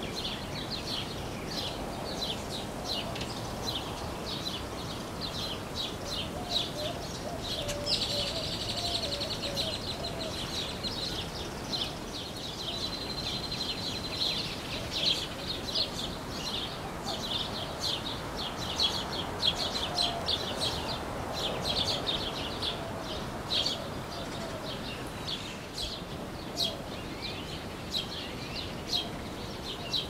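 Several garden songbirds chirping in quick, repeated short notes, with longer trills about eight seconds in and again a little later.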